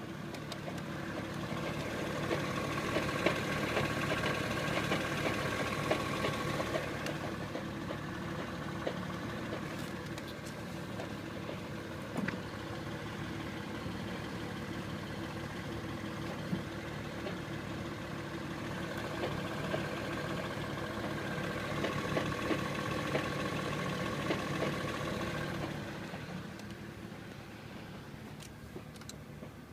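BMW 135i's turbocharged straight-six running with an unidentified noise that the owner places in the engine or transmission, while the Service Engine Soon light is on. Twice, for about five seconds each, it grows louder and a steady whine comes in, with light ticks throughout and a sharp click about halfway.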